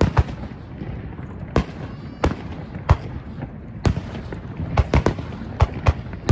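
Fireworks display, about ten sharp bangs of bursting aerial shells at irregular intervals over a steady background din.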